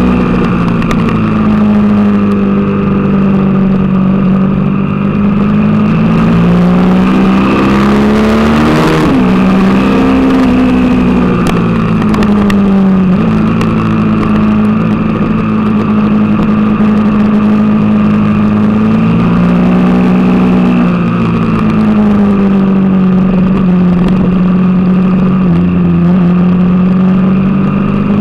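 Suzuki TL1000R's V-twin engine running hard under the rider, its note rising and falling with the throttle, with abrupt drops in pitch at gear changes.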